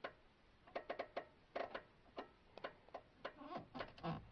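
Irregular light clicks and taps, about a dozen over four seconds, from small plastic dashboard parts being handled.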